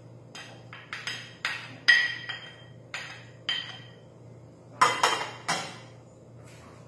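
A plastic spoon tapping and scraping on a glass lid and a glass bowl, knocking chopped onion off into the batter: about a dozen sharp clinks, loudest about two seconds in and again near five seconds.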